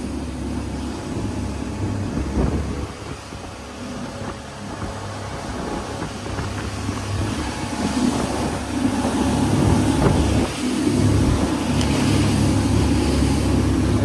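Twin Suzuki outboard motors running at cruising speed, a steady drone under the rush of wind and churning wake water; the sound grows louder about eight seconds in.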